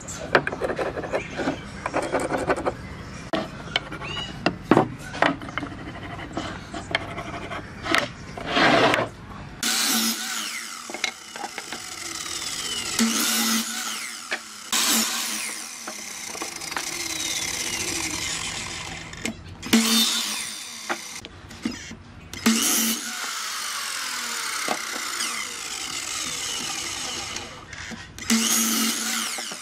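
Pine boards knocked and shifted on a wooden tabletop with scattered clicks and clatters. About ten seconds in, a sliding mitre saw takes over, its motor whine rising and falling as it crosscuts pine boards several times.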